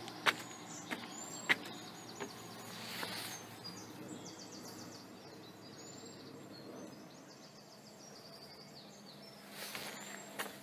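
Outdoor ambience with small birds chirping and trilling in the background. There are a few sharp knocks in the first two seconds, and brief rushes of wind-like noise about three seconds in and again near the end.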